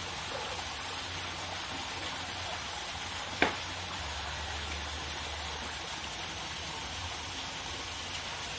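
Steady rushing outdoor noise with one sharp click about three and a half seconds in.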